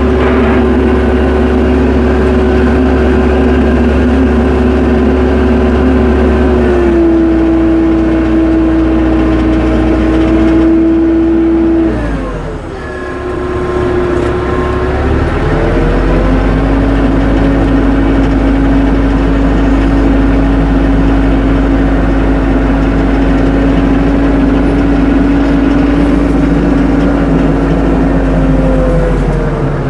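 Tractor engine running steadily under load. Its pitch steps down about a quarter of the way in, then falls away and briefly quietens near the middle. It climbs back up and holds steady, with a small rise again near the end.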